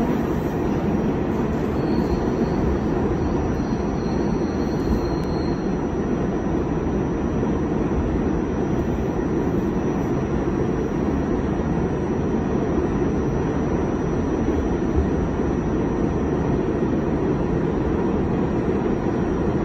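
New York City subway B train car running, a steady low rumble heard from inside the car. A faint high squeal rides over it between about two and five seconds in.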